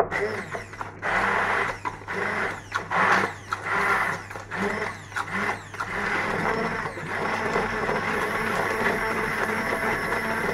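Electric blender motor whirring through a mix of cooked chickpeas, onions, stock and butter being blended into a sauce, in short bursts for the first few seconds, then running steadily.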